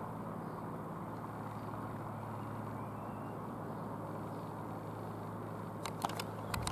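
Rockwell Commander 114's single piston engine and propeller droning steadily as the light aircraft flies over, a low even hum. A few sharp clicks near the end.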